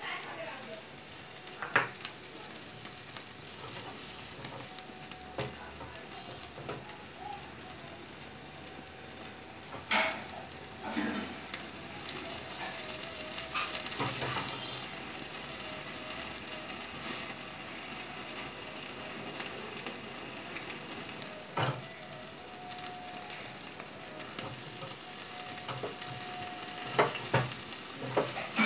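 Chicken sizzling as it roasts on a wire rack directly over the open flame of a gas stove burner: a steady sizzle and hiss, with a few short sharp knocks or clinks scattered through.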